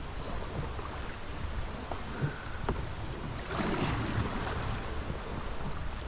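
Steady rush of river water and wind buffeting a small action-camera microphone on a moving raft, with four short, high falling chirps near the start.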